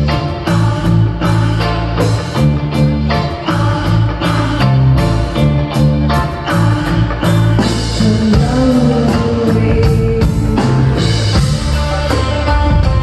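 Live rock band playing through the PA: drum kit keeping a steady beat under electric guitar and bass, with a woman singing over it. A long held note comes in about eight seconds in.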